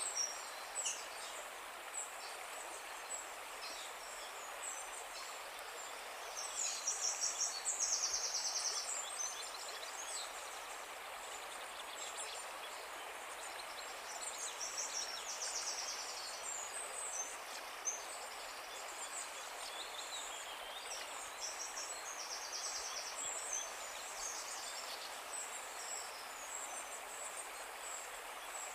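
Small birds singing in quick, high trills that recur every few seconds, over a steady outdoor background hiss.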